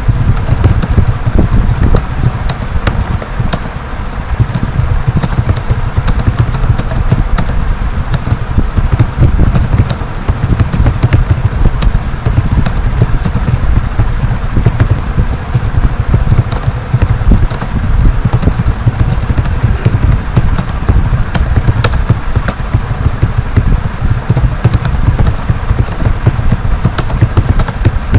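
Typing on a computer keyboard: a continuous run of key clicks over a steady low rumble.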